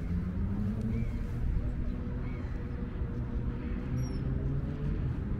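Riverside ambience: a low engine drone with slowly drifting pitch, and short high squeaky calls about every second or so, with a brief high falling whistle about four seconds in.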